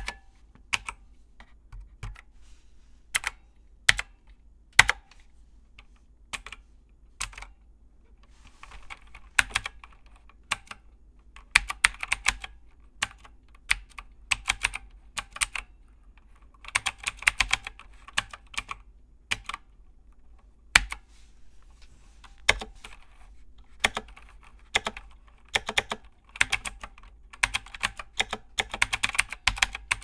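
Typing on a computer keyboard: slow single keystrokes for the first several seconds, then quick runs of keys in bursts, broken by a few louder single strokes.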